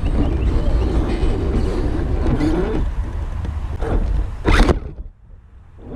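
Axial SCX10 III RC rock crawler's electric motor and gears whining, the pitch rising and falling with the throttle, over a low rumble. A loud, brief scuff about four and a half seconds in, then the sound almost cuts out for a second.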